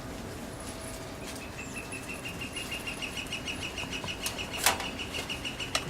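A high, rapid trill of repeated chirps, typical of a bird, starting about a second in and going on steadily, with a couple of sharp clicks near the end.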